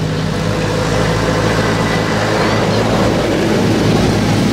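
A vehicle engine running steadily, a low, even drone that holds one pitch.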